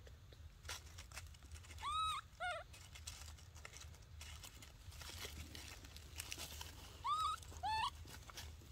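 Baby monkey giving short, high-pitched whimpering cries, each call rising then falling in pitch. They come in two quick pairs, about two seconds in and again near the end, over faint rustling in dry leaves.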